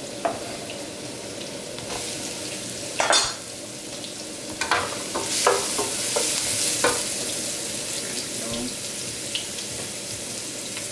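Garlic, ginger, chili and shiitake mushroom sizzling in hot oil in a nonstick wok while a wooden spatula stirs them. A few sharp knocks and scrapes of the spatula come through the steady sizzle, the loudest about three seconds in, and the sizzle grows brighter and louder a little after five seconds.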